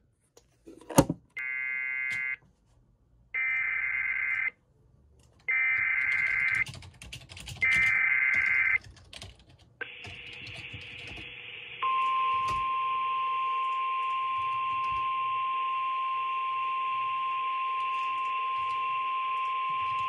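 An EAS alert coming through a Sage EAS ENDEC: after a click, four roughly one-second bursts of screeching SAME header data, a second apart. Then, over radio hiss, the single steady 1050 Hz NOAA Weather Radio warning alarm tone, which comes ahead of a tornado warning.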